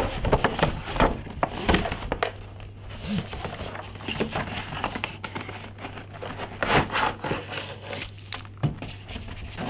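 Packaging being handled: a cardboard box tipped and shaken out, with rustling of cardboard and plastic wrap and a series of light knocks and clicks as the accessory cables and alligator clips come out of it.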